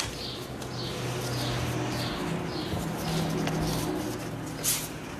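Repeated short, high, falling bird-like chirps over a low sustained cooing tone. Near the end come a few sharp clicks of a deck of tarot cards being shuffled in the hands.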